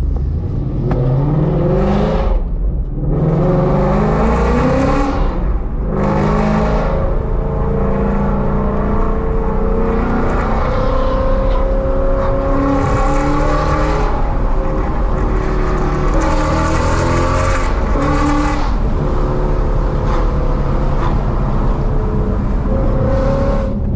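2016 Ford Mustang GT's 5.0 Coyote V8, with Kooks headers and a Corsa Extreme axle-back exhaust, accelerating hard. The engine's pitch climbs in several sweeps over the first seven seconds, dropping back at each gear change, then holds steadier with smaller rises and falls.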